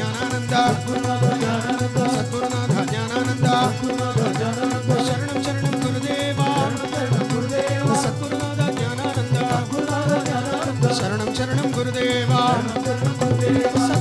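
Devotional bhajan singing: a male lead voice with a group of male voices, over steady harmonium and hand-drum beats.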